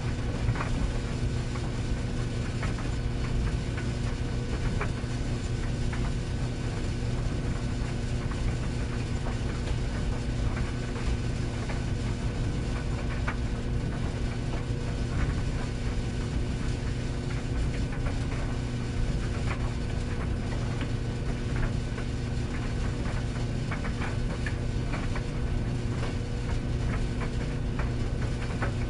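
Tumble dryer running: a steady low motor hum with the drum turning, and scattered light clicks at irregular intervals.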